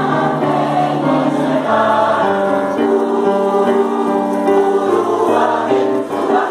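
Choir singing in harmony, holding long notes in several parts, with the chords shifting every second or so.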